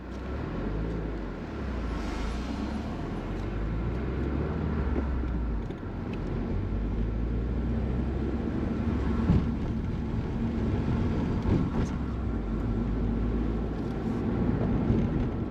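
Steady low rumble of road and engine noise from a car driving.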